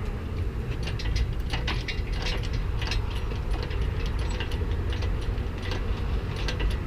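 Irregular small clicks and light knocks of hard objects being handled, over a steady low hum.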